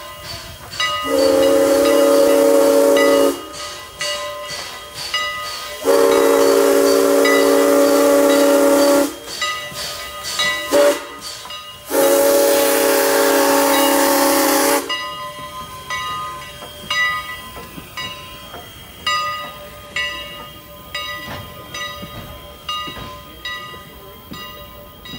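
Steam locomotive CNR 89's whistle, sounding several notes at once, blows the grade-crossing signal: two long blasts, a short one and a long one. Then the passenger coaches roll past, their wheels clicking steadily over the rail joints.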